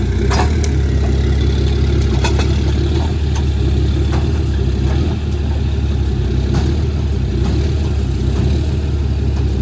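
Tow truck's engine running with a steady low rumble, with scattered metal clicks and clanks from the wheel-lift as the car is hooked up for towing.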